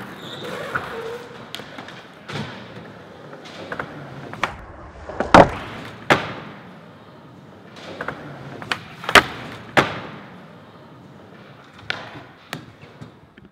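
Skateboard wheels rolling on the skatepark's ramps and floor, broken by repeated sharp clacks and slaps of the board as tricks are popped and landed. The loudest hits come about five and a half seconds in and again around nine to ten seconds.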